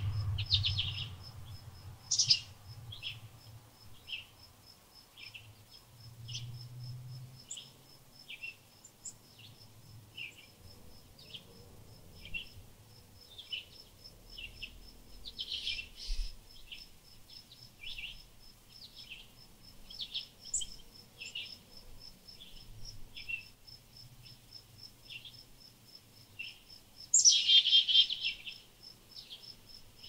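Small songbird giving short high chirps about once a second, with louder bursts of chirping about two seconds in, midway, and near the end. An insect pulses steadily underneath throughout.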